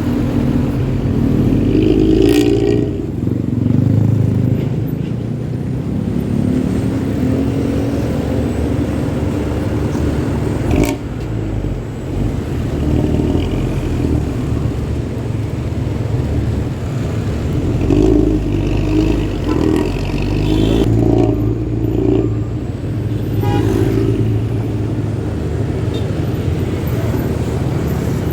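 Diesel engine of a Pantura intercity bus running with a deep, snore-like rumble (the 'ngorok' note), the revs swelling and easing several times. A sharp click comes about two seconds in and another about eleven seconds in.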